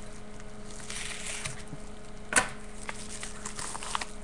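A mail envelope being opened by hand: paper and plastic rustling and tearing, with one sharp snap about halfway through and a few small clicks after it as the contents are handled.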